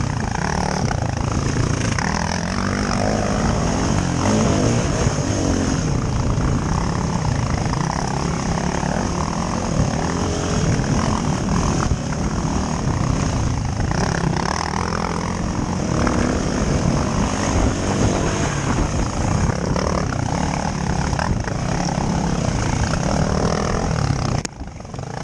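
Yamaha dirt bike engine running hard under changing throttle on a trail ride, its pitch rising and falling, heard close up from a helmet-mounted camera. The sound drops away briefly near the end.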